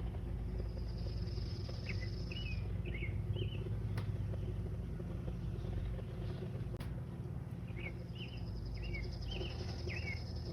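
A small songbird singing a high buzzy trill followed by a few short chirps, the phrase given twice, over a steady low background rumble.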